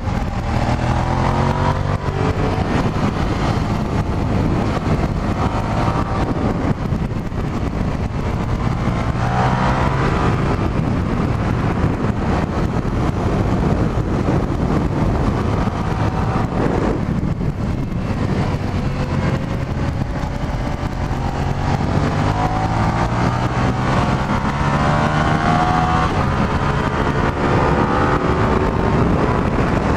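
Stock 2003 Suzuki SV650S's 645 cc V-twin engine under hard acceleration, its pitch climbing several times as it pulls out of corners and through the gears, with the longest climb in the last third. Heard from inside the rider's helmet, with steady wind rush.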